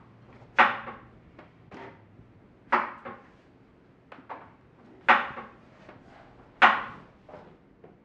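Four sharp knocks about two seconds apart, each followed by one or two lighter ones, as of hard objects set down or struck on a wooden surface.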